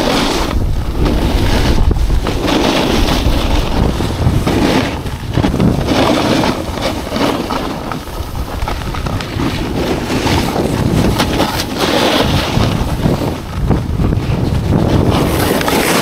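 Wind buffeting a moving camera's microphone while riding down a ski slope, over the hiss and scrape of a rider's edges sliding on snow. The rush rises and falls with the turns.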